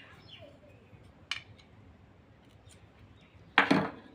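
Small metal clicks from hand tools working on a stand fan motor's end shield as a new bushing is fastened in with screws and rivets: one sharp click, then a short, louder clatter near the end.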